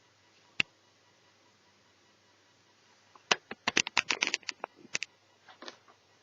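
Small hard plastic and metal parts of a netbook clicking and rattling as they are handled during disassembly: a single sharp click, then a quick flurry of clicks for about two seconds, then a few softer ones.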